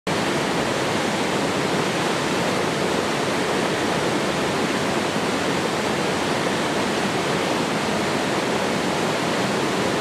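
Small waterfall cascading over granite rocks into a pool: a steady, even rush of falling water.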